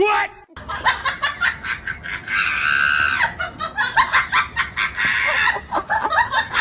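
A person laughing in short bursts while two cats spar, with one long high-pitched cry about two seconds in.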